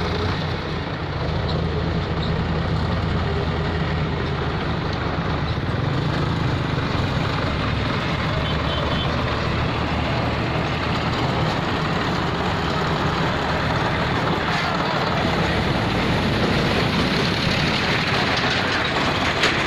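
Powertrac 445 DS tractor's diesel engine running steadily under load as it hauls and tips a trailer of soil.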